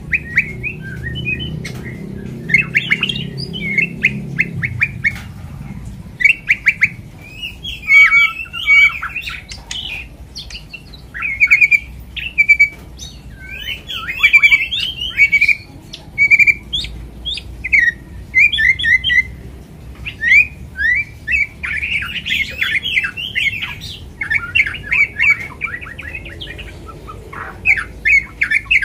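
White-rumped shama (murai batu) singing a long, varied song: rapid trills, clear whistled notes and harsh squawky notes in phrases separated by short pauses.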